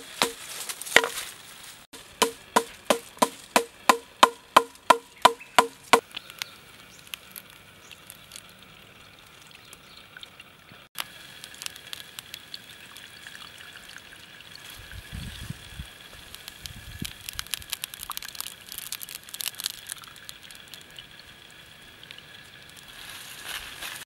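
Wooden mallet striking a blade into a bamboo stalk: sharp, hollow-ringing knocks about three a second, stopping about six seconds in. After that, softer crackling and tearing as the husk is peeled from a bamboo shoot by hand.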